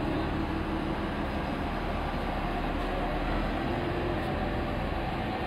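Steady outdoor city background noise: a low, even rumble of traffic with a faint hum, no single event standing out.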